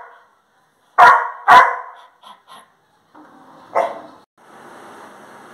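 Labrador dog barking: two loud barks about a second in, half a second apart, a couple of short soft yips, then another bark near four seconds.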